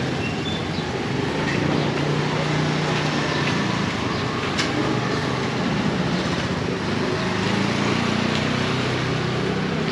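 Busy street ambience: a steady wash of traffic noise, with a motor vehicle's engine hum passing close by about two seconds in and again near the end.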